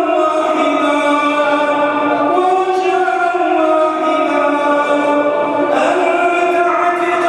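A man's voice chanting a du'a (Islamic supplication) into a microphone, drawn out in long melodic notes that step to a new pitch every two to three seconds.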